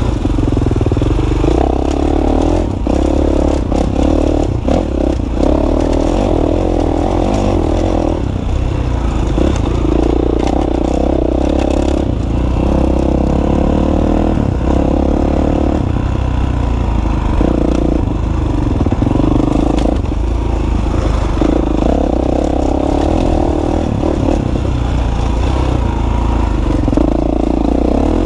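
Dirt bike engine being ridden along a rough trail, the throttle opening and easing off every couple of seconds. Scattered rattles and knocks come from the bike over bumps.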